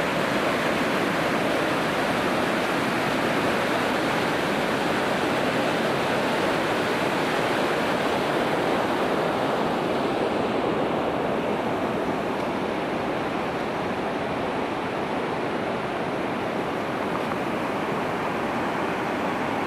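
Puntledge River whitewater rushing over the bedrock ledges of Stotan Falls: a steady, even rush of water. It turns a little duller from about halfway on.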